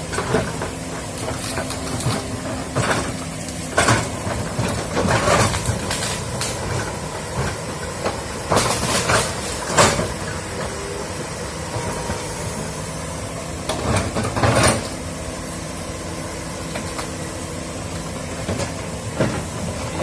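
Excavator diesel engine running steadily, with short, sharp knocks every few seconds.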